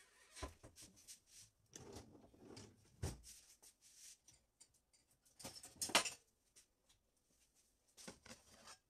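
Scattered handling sounds of kitchen things being moved: light clicks, knocks and rustles, with a sharper knock about six seconds in. Near the end, a gloved hand takes hold of a stainless steel pot.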